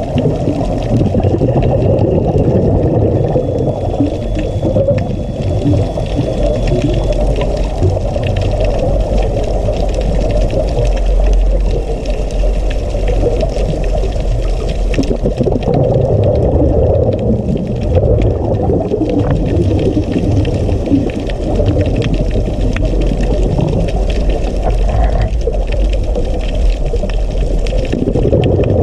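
Underwater ambient noise picked up through a submerged camera's housing: a steady, muffled low rush of water with no distinct events.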